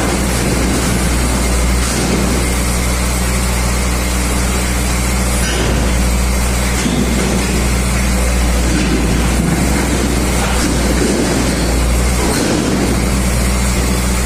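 KAMAZ truck's diesel engine running steadily with a low hum while it powers the truck-mounted hydraulic loader crane as the boom is worked.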